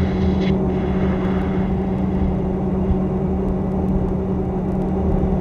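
Cockpit noise inside a two-seat F-18 Hornet in flight: a steady drone with a constant low hum. A high-pitched buzz cuts off about half a second in.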